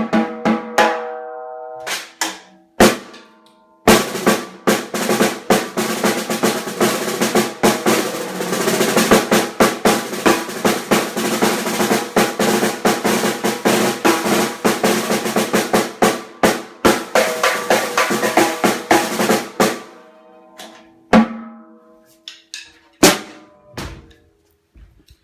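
Noonan 14x5.5 brass snare drum being played: a few single strokes with a ringing tone, then about sixteen seconds of fast strokes and rolls, then a few more separate hits.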